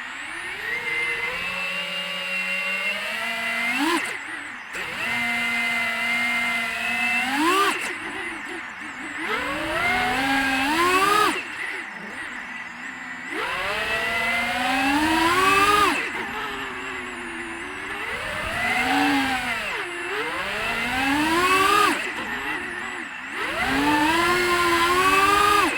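FPV quadcopter's brushless motors and propellers whining. The pitch surges up and drops back every few seconds as the throttle is punched and cut through the tricks.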